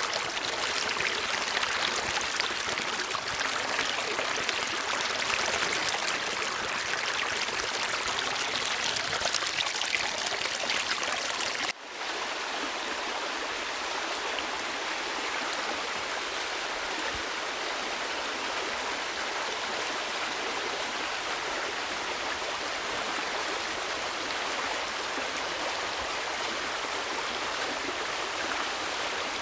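Flowing water rushing steadily, like a stream. About twelve seconds in it drops out for a moment and resumes as a slightly quieter, more even rush, as if a second recording were spliced in.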